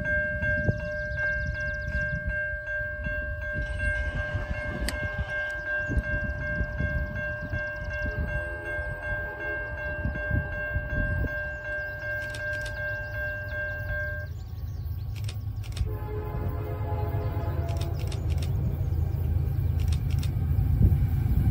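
Approaching CSX freight train's locomotive horn held in one long, steady multi-note chord that stops about 14 seconds in, followed by fainter horn sound, while the low rumble of the train grows louder toward the end.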